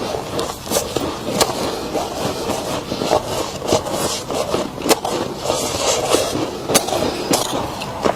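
Freezer frost crunching and crackling, a dense irregular run of crisp crunches and sharp clicks, as the frost is chewed or scraped.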